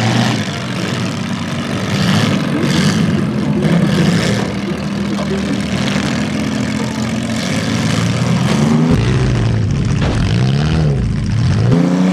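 Demolition derby car engines held at high revs under load while the cars push against each other. From about three-quarters of the way through, the engine pitch swings up and down repeatedly.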